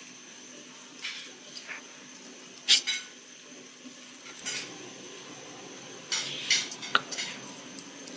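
Kitchen utensils and dishes clinking and knocking in a handful of separate clatters, the loudest one nearly three seconds in and a quick cluster near the end.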